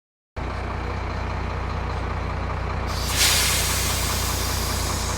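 Dumper truck's engine running steadily with a deep rumble. About three seconds in, a loud hiss starts and carries on over the engine.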